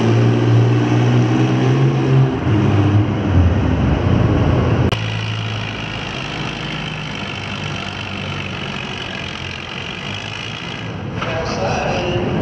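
Antique tractor engine running hard under load while pulling a weight-transfer sled. The engine note is strong for about the first five seconds, then drops suddenly and carries on quieter as the tractor moves down the track.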